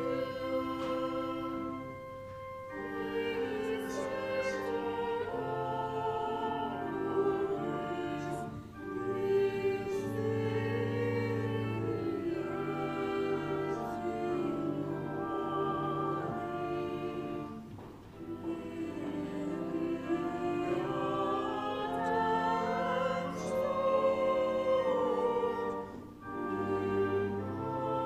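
Sacred church music: a voice singing with vibrato over held chords, in phrases with short breaks between them.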